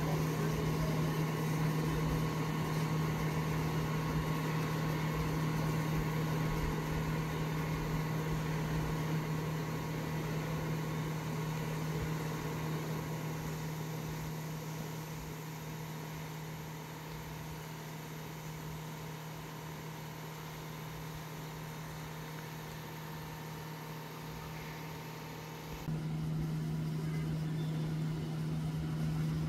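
Steady low mechanical hum, like an engine idling, with a fainter higher tone running above it. It fades somewhat past the middle and returns abruptly near the end.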